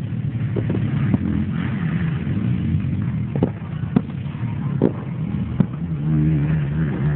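Off-road racing engines, most likely quad bikes, running on the track out of sight, with a pitched engine note that swells and wavers near the end. About half a dozen short sharp cracks sound along the way.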